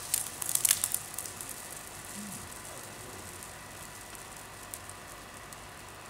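Silver metallic foil confetti from a confetti cannon raining down onto a stage floor: a cluster of light ticks and crackles in the first second, thinning to a faint patter that dies away.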